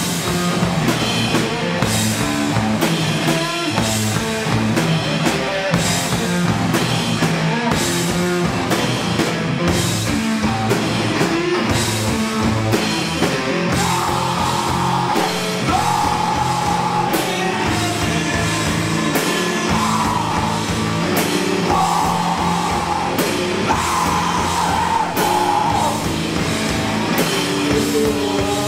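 A live rock duo of electric guitar and drum kit playing loudly, with cymbal hits in a steady beat. About halfway through, high notes held for a second or two at a time come in over the rhythm.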